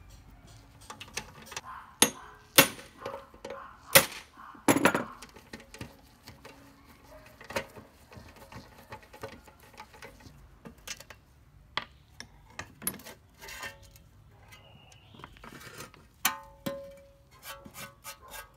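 Metal parts clinking and knocking against each other and a hard surface: a string of sharp clanks, loudest in the first five seconds, with a brief ringing note near the end.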